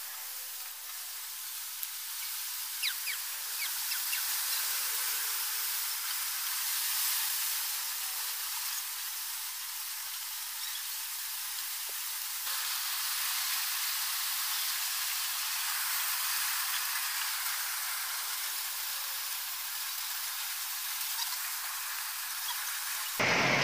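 Steady hiss with the low end cut away, and a few faint light clicks scattered through it.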